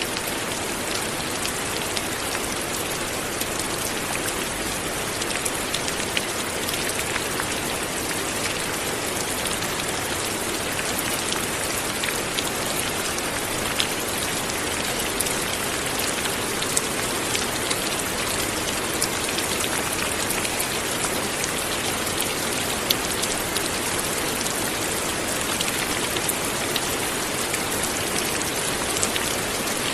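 Light rain falling steadily, a constant hiss with many small drops pattering and ticking on a surface.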